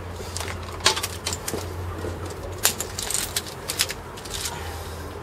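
Scattered clicks and light knocks as a portable tyre compressor is set down and its coiled air hose and fittings are handled, over a low steady hum.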